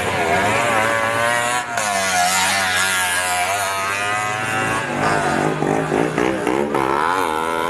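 Tuk-tuk (auto-rickshaw) engines revving, the pitch rising and falling unevenly, over a steadier low engine tone.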